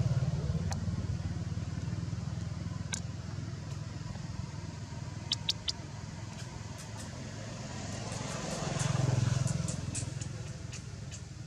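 Low hum of a vehicle engine, loud at the start and swelling again near the end as it passes. A few sharp clicks come about halfway through.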